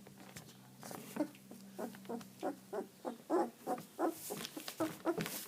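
Young puppy giving a quick run of short, high-pitched cries, about three a second, starting about a second in.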